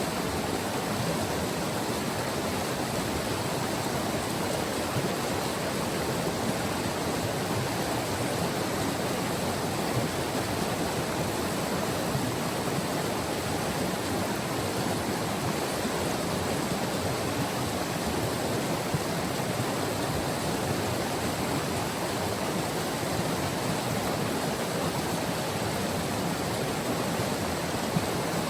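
White River's water rushing steadily over its bed, an even, unbroken roar of flowing water.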